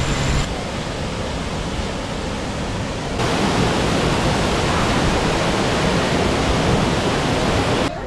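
Waterfall pouring into a rock pool: a steady rushing splash that grows louder about three seconds in, from close behind the curtain of falling water.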